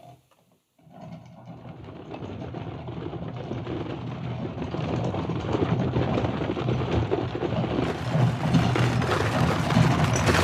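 Foley rendition of carriage wheels rolling: a rough, rumbling rolling noise that starts about a second in and grows steadily louder.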